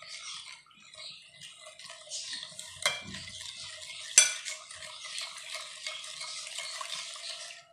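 A metal spoon stirs tamarind water and spices in a bowl, scraping and tapping against the bowl over and over. Two sharper clinks come about three and four seconds in, the second the louder.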